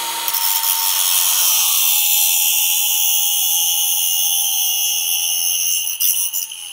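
Angle grinder running at speed, its disc grinding down a screw to shorten it: a loud high-pitched metallic screech over the motor's steady whine. Near the end the grinder is switched off and starts to wind down.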